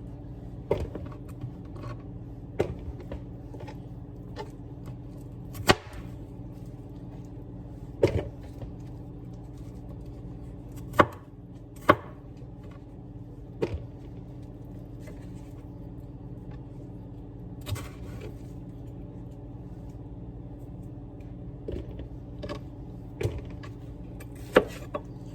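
Irregular knocks and clacks of kitchen prep on a counter, a knife, bowl or utensil set down or struck every second or few, over a steady low hum.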